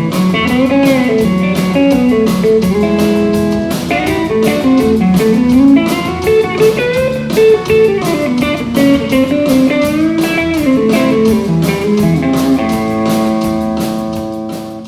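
Pedal steel guitar playing a melodic line whose notes slide smoothly up and down in pitch, with a steady beat behind it. Near the end it settles on a held chord that fades away.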